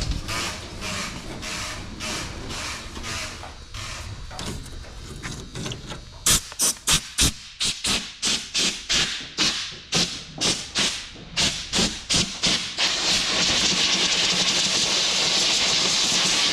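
Compressed-air blow gun hissing in a run of short blasts, coming quicker and louder about six seconds in, then held on as one long steady blast for the last few seconds: blowing dirt and loose rust out of a truck's bed side.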